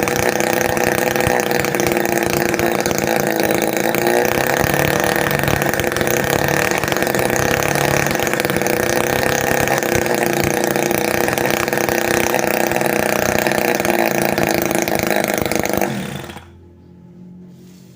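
Homemade mini two-stroke engine, built from a refrigerator compressor, running loud and steady, then cutting out about sixteen seconds in, leaving only a faint low hum.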